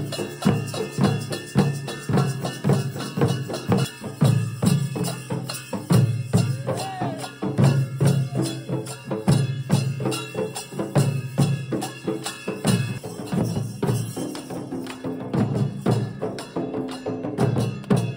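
Dollu Kunitha drumming: a troupe beating large dollu barrel drums with sticks in a fast, dense, continuous rhythm.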